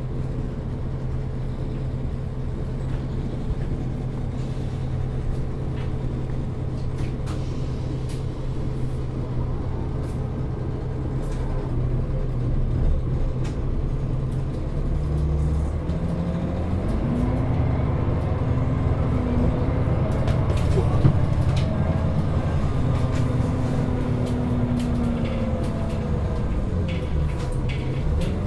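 Solaris Urbino II 18 articulated city bus with a ZF Ecomat automatic gearbox idling steadily, then pulling away about halfway through. Its engine note rises, drops back and rises again as the gearbox shifts up through the gears, over small rattles from the body.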